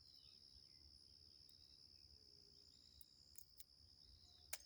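Faint, steady high-pitched insect trill in the forest at dawn, with a few soft clicks.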